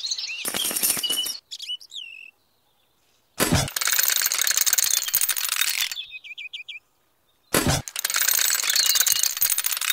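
A small metal chain rattling and jingling in two long spells of a couple of seconds each, as it is hooked onto a toy tractor and then onto a toy train carriage. Short bird chirps sound between the spells.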